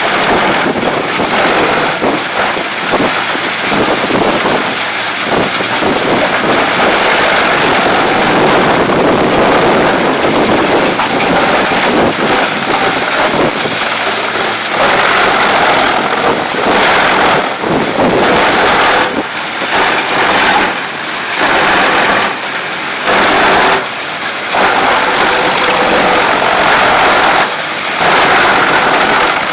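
Large wood chipper running and shredding wood: a loud, dense rushing noise over the engine, dipping briefly several times in the second half.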